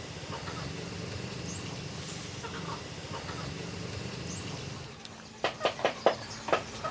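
Low steady background, then about five seconds in a run of sharp clicks and knocks, several a second.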